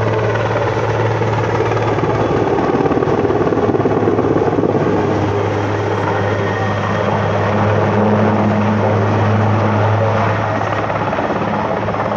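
Denel Rooivalk attack helicopter flying a display pass: a steady rotor thrum with twin-turbine whine, swelling and easing twice as it turns.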